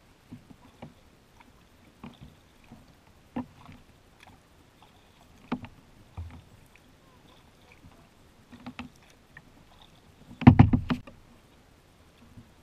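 Kayak paddling on calm water: light dripping splashes and scattered small knocks of the paddle against the hull, then a louder cluster of splashes and knocks about ten seconds in.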